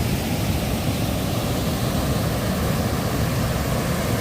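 Steady rushing of a waterfall close by, a continuous deep wash of falling water.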